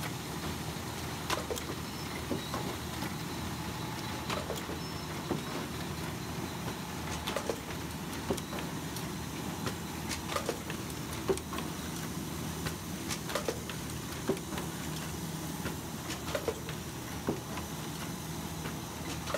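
Puzzle-box laminating machine running as it glues printed top sheets onto box tops. It makes a steady mechanical hum with frequent sharp clacks.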